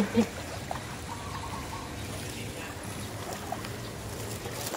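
Floodwater trickling and sloshing over a steady low hum.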